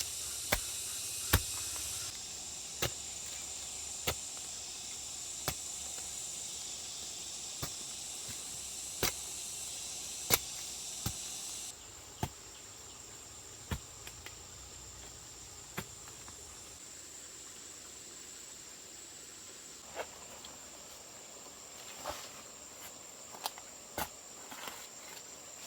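Sharp knocks of a tool striking bamboo, roughly one every second or two and sparser in the second half, over a steady high-pitched insect drone.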